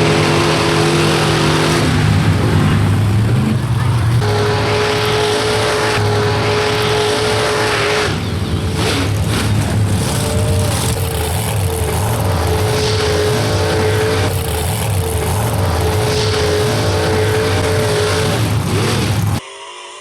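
A mud racing truck's engine running hard at high revs. Its pitch climbs about two to four seconds in and is then held, with rough hash and crackle over it from about eight seconds. The sound cuts off abruptly near the end.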